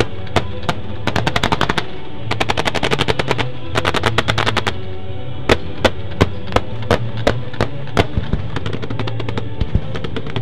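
Firework single shots firing: rapid volleys of sharp cracks, about eight a second, through the first half, then spaced single shots two or three a second. Music plays underneath.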